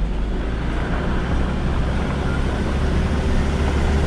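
Ute driving along a dirt track: steady low engine drone with tyre and road rumble.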